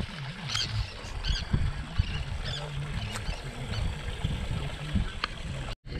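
Wind and choppy water lapping around a small boat, with several short, high chirping calls from seabirds in the first few seconds. The sound cuts out briefly near the end.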